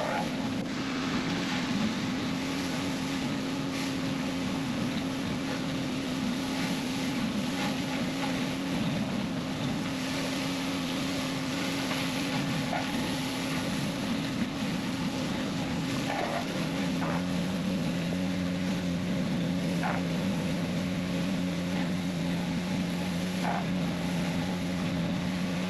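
Pressure-washer surface scrubber cleaning a concrete pool deck: a steady motor hum over a hiss of spraying water. The hum drops to a lower pitch about two-thirds of the way through.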